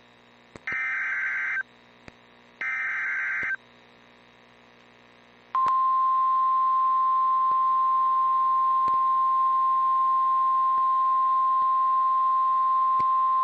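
NOAA Weather Radio SAME alert. Two warbling digital header bursts, about a second each and a second apart, are followed about five and a half seconds in by the steady single-pitch 1050 Hz warning alarm tone, which runs on. This sequence marks the start of a new warning broadcast.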